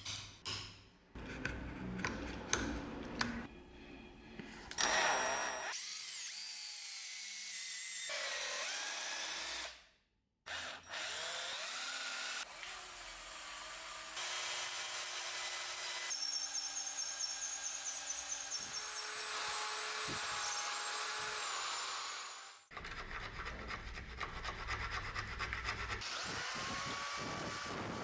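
A few sharp taps, then an electric drill running as a long twist bit bores lengthwise into a wooden handle block, its motor tone steady with a brief stop. Near the end there is a rapid scraping rattle.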